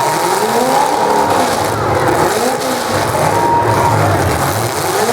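Full-size demolition derby cars' engines revving hard, their pitch repeatedly rising and falling over the rough noise of the cars running on the track.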